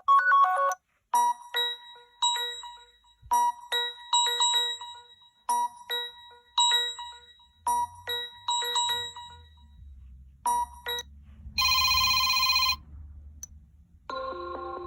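Sony Xperia Z5 Compact ringtones playing one after another: a bright, bell-like melody of short plucked notes repeating in phrases, then a short buzzy tone about twelve seconds in, and a new sustained melody starting near the end.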